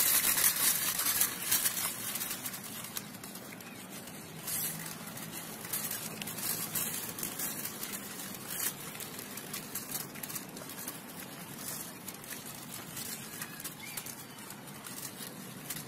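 A child's small tricycle rolling over brick paving as it is pedalled, its small wheels rattling in a steady clatter that is loudest in the first couple of seconds.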